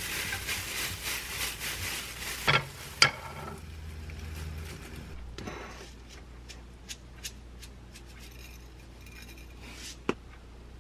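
Disposable plastic gloves crinkling as hands press and shape a ball of fried rice, followed by two sharp knocks half a second apart. Later come light scattered ticks as sesame seeds are shaken from a container over the rice balls on a plate, and one sharp knock near the end.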